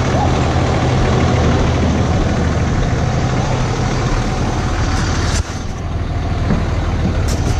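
Vehicle engine running as the vehicle is backed up. The level drops suddenly about five seconds in, and a couple of sharp clicks come near the end.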